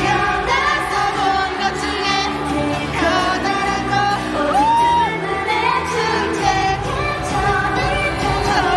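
Live K-pop dance-pop song: a female group sings into handheld microphones over a loud backing track through the stage sound system. The deep bass is thin at first and comes in strongly about six and a half seconds in.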